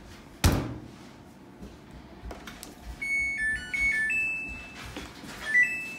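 Samsung top-load washing machine: a loud thunk about half a second in, as its lid shuts, then its control panel plays a short stepped beeping tune and a few rising beeps as the wash cycle is started.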